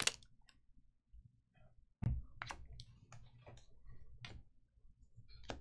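Trading cards and packs being handled on a tabletop: a dull thump about two seconds in, then a scattering of light clicks and taps, roughly one or two a second.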